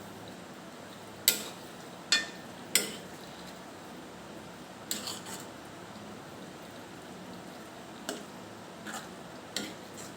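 A metal utensil clinking against dishware, with about seven sharp, irregular clinks. The first three are the loudest.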